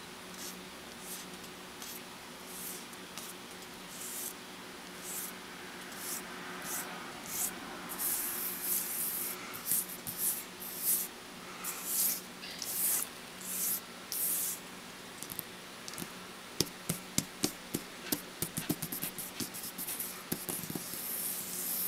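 A hand swiping and rubbing across a multitouch table's surface, making short hissing swishes that come more often and louder from about halfway through. Near the end there is a quick run of fingertip taps, all over a steady low hum.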